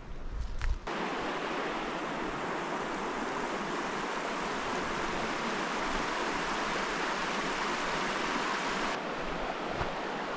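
A few footsteps on forest litter, then, about a second in, the steady rush of a shallow, rocky river running over stones starts abruptly. It turns slightly duller near the end.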